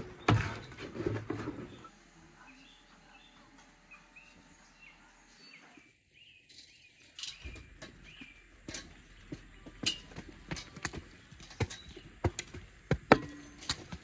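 Small birds chirping in the background, with scattered sharp taps and knocks that come thick and loud through the second half.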